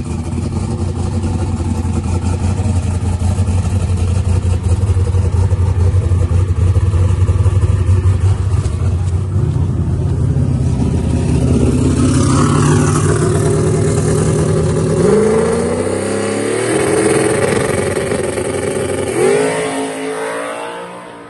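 Turbocharged Camaro drag car's engine running loud, with a steady, pulsing idle. After about eleven seconds the pitch climbs in a few rising sweeps as it is revved and pulls away, with the sharpest climb near the end. The sound cuts off suddenly at the end.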